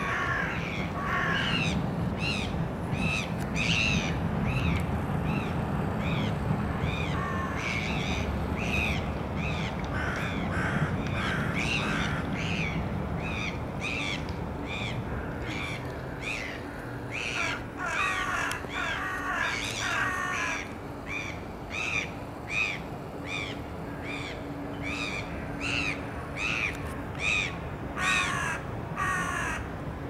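Several crows cawing over and over, about one or two caws a second, with bursts where calls overlap as the birds mob a gull.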